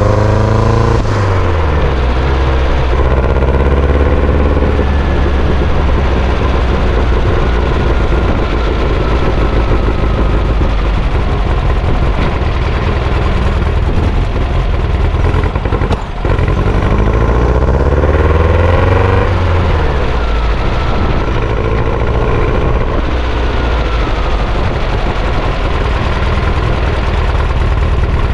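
Sand buggy engine running hard as the buggy is driven, revving up and down several times. There is a brief drop in sound about halfway through.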